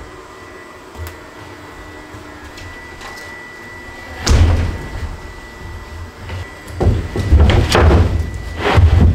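A large sheet of plywood being lowered onto wooden floor joists and shuffled into place, scraping and knocking against the framing. The loudest bursts come about four seconds in and again over the last two seconds.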